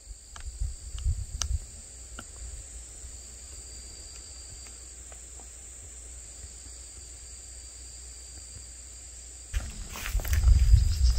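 Summer insects trilling, a steady high-pitched chorus with a second, slightly lower trill that drops out and comes back. Near the end a burst of low rumbling and knocks on the microphone is the loudest sound.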